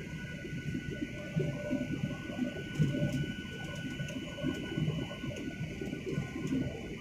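Boeing 737-900ER cabin noise during the descent: a steady high engine whine over an uneven low rumble.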